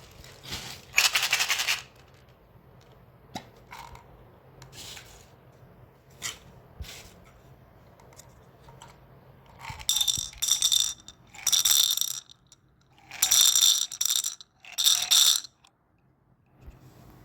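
Small hard candies rattling against a plastic container in a short burst about a second in, then four bursts of shaking between about ten and fifteen seconds in, with a bright ringing clatter.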